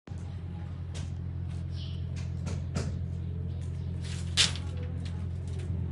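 Light clicks and knocks of coiled steel rebar being handled, the sharpest about four and a half seconds in, over a steady low hum.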